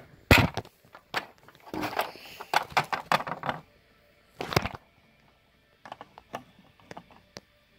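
Small plastic toys being handled on a plastic playset: a run of sharp clicks and knocks as a toy pet figure and a toy seesaw are moved about. The knocks are loudest in the first half and turn to fainter ticks later.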